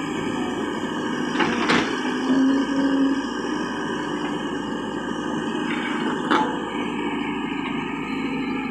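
JCB tracked excavator's diesel engine running steadily as the machine swings and digs into soil, with sharp knocks about one and a half seconds in and again about six seconds in.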